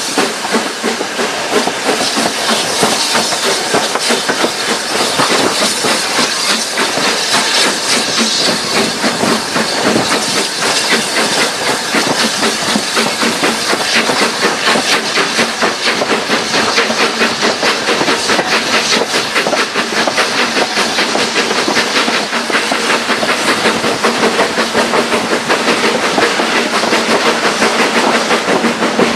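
Steam locomotive under way, heard from its cab: fast, even exhaust beats over a steady hiss of steam, with the rattle of the wheels on the track.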